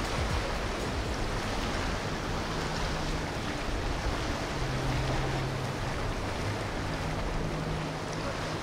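Azimut 38 motor yacht under way: water rushing along the hull and churning in its wake, with a low steady engine drone.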